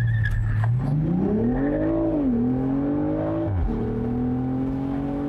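2020 BMW Z4 M40i's turbocharged straight-six accelerating hard from a launch: the engine note holds steady for about a second, then climbs through the gears, the revs dropping at an upshift about two seconds in and again about three and a half seconds in, heard from the open-top cockpit.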